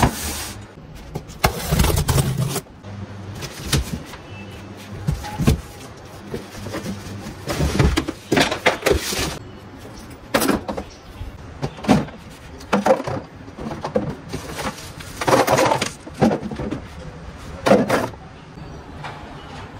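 Unpacking a boxed ride-on toy car: irregular knocks, scrapes and rustles as the cardboard box and hard plastic parts and tyres are moved and set down on a tiled floor, with the loudest knock right at the start.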